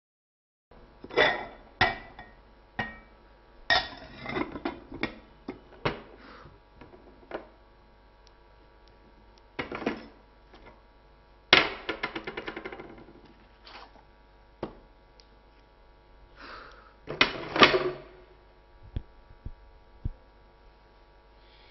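Crockery and glass bottles clinking and clattering as they are handled and set down on a table: a series of sharp knocks, one about halfway through followed by a quick rattle that dies away.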